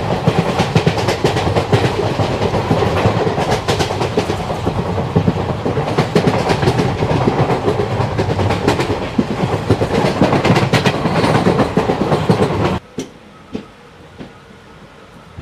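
Express passenger train running at speed, heard from an open coach door: a steady rush of wheels on rails with clickety-clack of the wheels over rail joints. About 13 seconds in it cuts off suddenly to a much quieter patter of rain with the train standing still.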